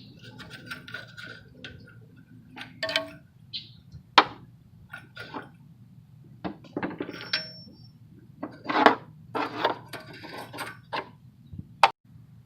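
Metal hand tools clinking and knocking as they are handled and set down: irregular sharp clinks, a few with a brief metallic ring, loudest about four seconds in and about nine seconds in.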